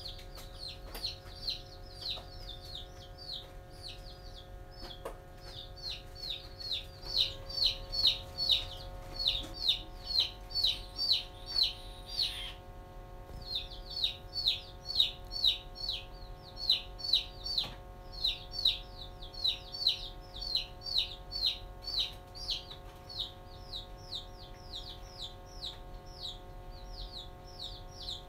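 Chicks peeping continuously: rapid, high, downward-sliding peeps, about three a second, with a short pause about halfway through.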